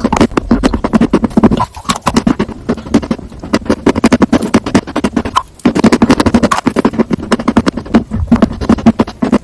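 Close-miked crunching and chewing of a grilled sandwich: loud, dense crackles in runs, with short pauses about 2 and 5½ seconds in.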